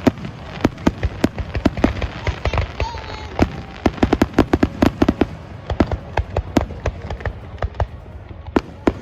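Fireworks going off in a rapid, irregular barrage of sharp bangs and crackles, densest in a cluster about halfway through.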